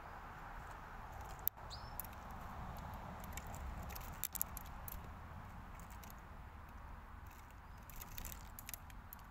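European robin pecking at bird seed on a wooden post: a scatter of light clicks and taps, with two sharper knocks and a short high chirp about two seconds in.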